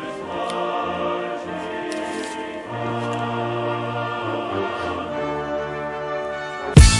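Background music with slow, long held chords; just before the end a loud beat of sharp drum hits cuts in.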